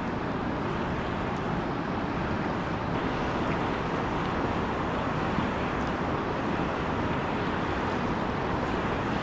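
Steady rush of fast-flowing river water over rapids.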